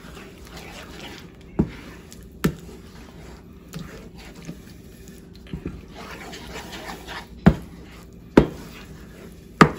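Wooden spoon stirring thick curry paste in a nonstick frying pan, scraping through it and knocking against the pan. There are a few sharp knocks, the loudest three in the second half.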